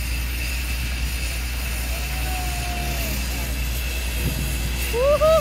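A single-engine turboprop jump plane's engine idles with a steady drone and a high whine. Near the end a person's voice calls out.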